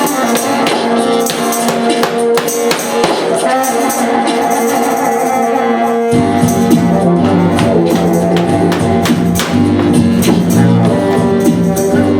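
Live band music with rhythmic percussion and held instrument notes; low bass notes come in about halfway through.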